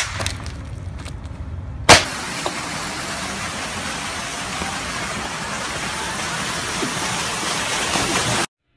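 A mobile phone slammed down onto asphalt with a sharp crack, over a low street-traffic rumble. About two seconds in comes a louder sudden hit, then a steady rushing hiss that cuts off abruptly near the end.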